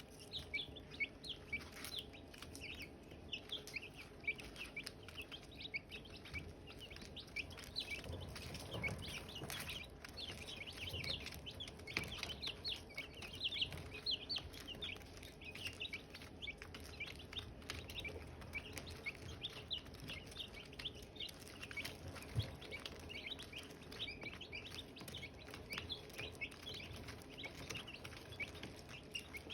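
A group of Silkie chicks peeping continuously: a dense chorus of many short, high chirps overlapping one another.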